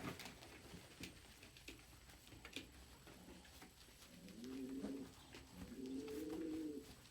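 Domestic pigeons cooing softly: two drawn-out coos that rise and fall in pitch in the second half, after a few faint clicks.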